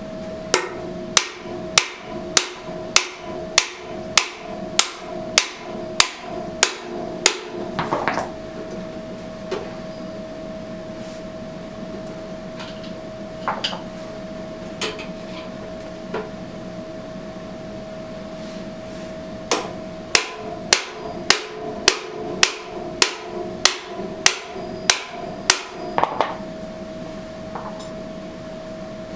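Hammer blows in two steady runs of about a dozen strikes each, roughly one every half second or so, with a gap of several seconds and a few lone knocks between them. A steady hum sits beneath.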